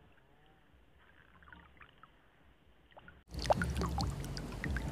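Faint open-air lake ambience, then about three seconds in the sound cuts abruptly to louder water splashing and lapping, with many small clicks and drips over a low rumble.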